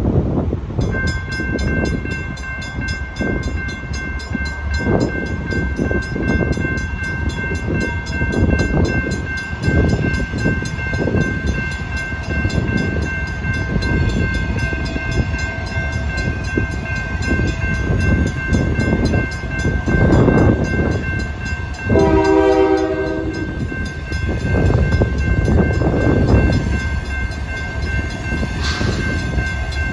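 Railroad crossing bells ringing in rapid, even strikes, a WRRS mechanical bell together with an NEG electronic bell, starting about a second in as the crossing activates for an approaching train. About 22 s in, the approaching locomotive, a Union Pacific EMD GP60, sounds one horn blast of about a second and a half. Wind rumbles on the microphone.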